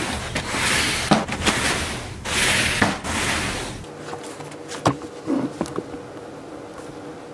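Rustling noise with several sharp clicks, dying down after about four seconds to a faint steady hum with a few more clicks.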